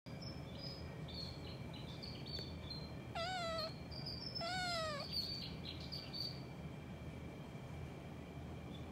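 A cat meows twice, about three seconds in and again a second later, each call wavering and dropping in pitch at its end. Short, high bird chirps come and go through the first several seconds.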